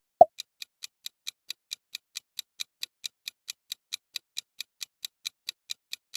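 Quiz countdown timer ticking steadily, about four to five ticks a second, opened by a short loud pop.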